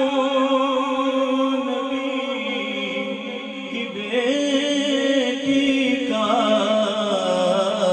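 A man singing a naat into a microphone in long, drawn-out held notes with a wavering vibrato; a new, higher phrase starts about four seconds in and another about six seconds in.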